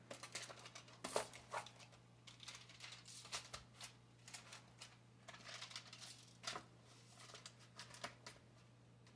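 Faint kitchen handling noise: scattered light clicks and rustles, over a steady low hum.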